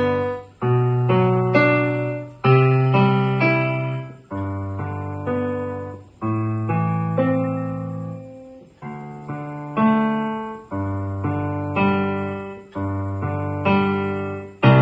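Digital piano played with both hands: held bass notes under chords, with a new chord struck about every two seconds and each one fading before the next.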